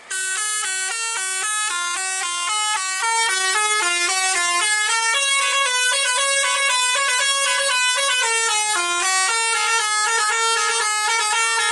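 A tour bus's telolet basuri musical horn plays a long melody of short stepped notes without a break. It starts suddenly.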